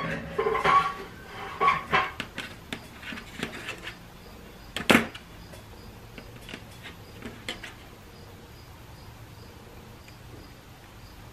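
Small metal valve-body parts and hand tools being handled on a workbench, giving light clicks and knocks, with one sharper click about five seconds in and a few more soon after. Then only quiet room tone.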